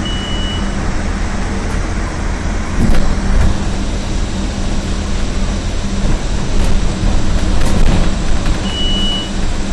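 Scania OmniCity double-decker bus heard from on board: steady diesel engine hum and road noise while driving, with louder knocks and rattles about three and eight seconds in. A short high beep sounds twice, at the start and near the end.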